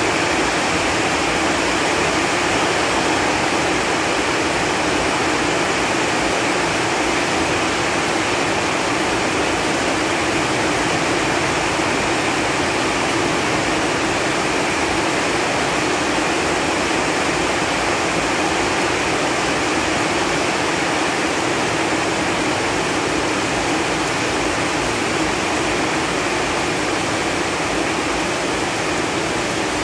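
Steady rain falling on leaves: an even, dense hiss of many drops that does not change.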